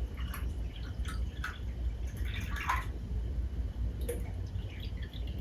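Water pouring, splashing and dripping into a small electric travel kettle, in short irregular spurts.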